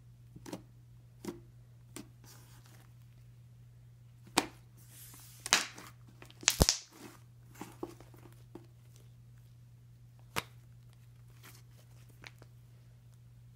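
Cornstarch matte slime being poked, squeezed and stretched by hand: scattered sticky clicks and pops, with louder crackling tears about four and a half, five and a half and six and a half seconds in.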